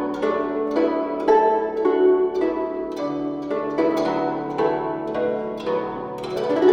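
Relaxing Chinese-style instrumental music: plucked string notes ringing out one after another, several a second, over a held low drone.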